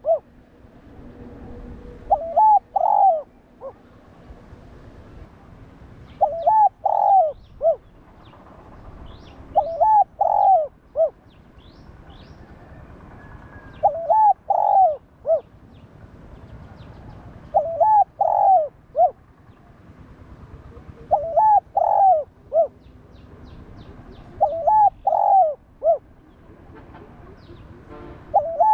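Spotted dove cooing: a short phrase of three or four coos repeated about every three and a half to four seconds, seven phrases in all. Faint high chirps of small birds come between the phrases.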